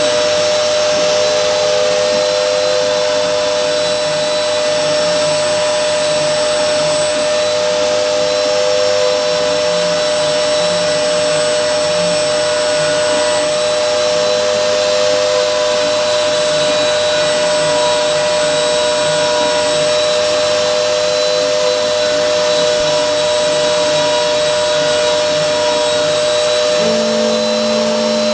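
CNC router spindle running steadily while milling, a constant high whine over an even rushing noise. A short lower hum joins it near the end.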